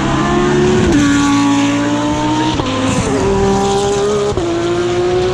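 GT3 race car engine running hard under load, its pitch climbing steadily and dropping sharply with upshifts about a second in and again near the end, with a quick jump in pitch in between.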